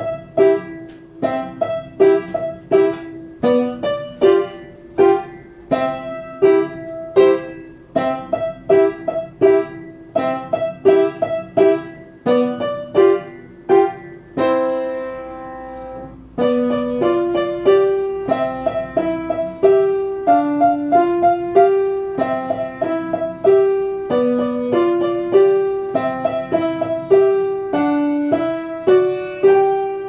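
Yamaha JXC3 upright piano played with both hands: a lively run of short, detached notes, with a high note struck again and again over a moving lower line. About halfway through, a chord is held and left to ring out for a couple of seconds, and then the quick repeated notes resume.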